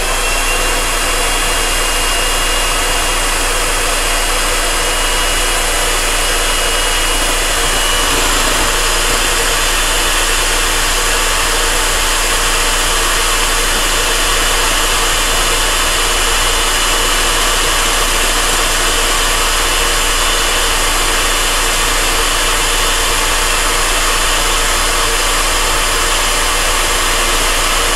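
Electric hand mixer switched on and running steadily, its beaters whipping eggs in a glass bowl.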